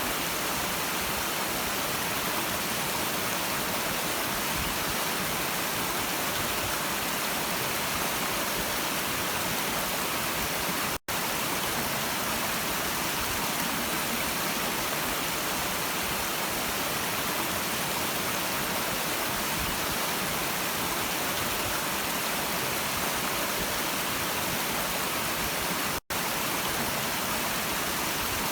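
Stream water rushing steadily, an even hiss with no distinct splashes. The sound cuts out for an instant twice.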